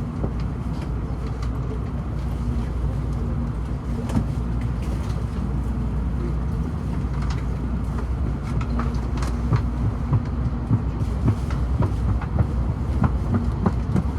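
Cabin noise of a Shinkansen bullet train running: a steady low rumble with a faint hum, and scattered light clicks and knocks that come more often in the second half.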